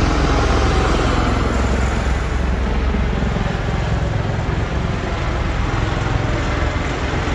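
V-22 Osprey tiltrotor aircraft flying overhead: a loud, steady drone of rotors and engines with a deep low rumble, easing slightly a couple of seconds in.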